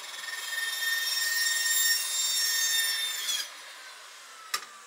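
Fein Slugger 14-inch carbide-tipped cold saw cutting through aluminum tubing: a high, ringing whine with several steady tones as the blade goes through the tube. After about three and a half seconds the cut ends abruptly and the blade spins down, and a single sharp tap follows near the end.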